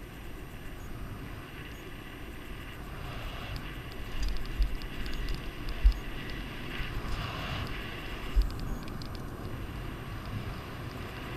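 Wind rushing over the microphone of a camera on a bicycle riding fast down a paved road, with the tyres rumbling on the asphalt. The wind buffets harder about four seconds in, with sharp low thumps near six seconds and again around eight and a half seconds.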